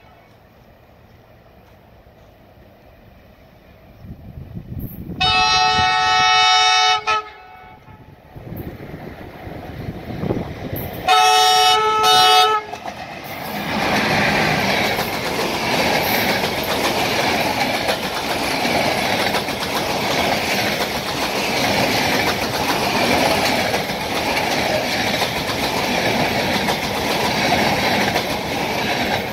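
CFR class EA electric locomotive approaching with a passenger train and sounding its horn in two long multi-tone blasts, the first about five seconds in and the second about eleven seconds in. It then passes close by at speed, and the locomotive and coaches make a loud, steady rumble and clatter of wheels on the rails to the end.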